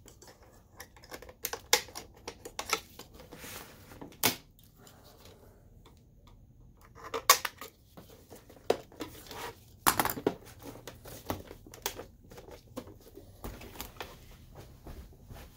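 Irregular clicks and knocks from handling an Optoma HD20 projector's plastic housing: a small screw being backed out with a precision screwdriver, then the projector being turned over and set down. The loudest knocks come about seven and ten seconds in.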